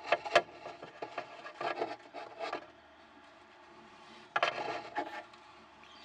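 Paintbrush scrubbing and dabbing at fibreglass cloth against the plastic hull of a model yacht, in irregular scraping strokes. There is a sharp tap about half a second in. The strokes stop for about a second and a half, then resume briefly.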